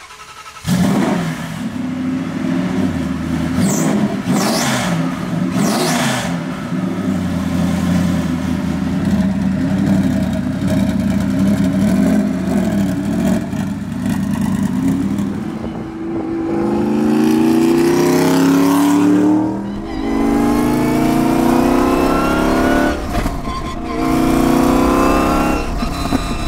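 Twin-turbo Ford Coyote V8 of a hot rod truck, heard from about a second in running rough and lumpy with a few sharp revs. In the last third it accelerates hard, its pitch climbing in several pulls broken by gear shifts.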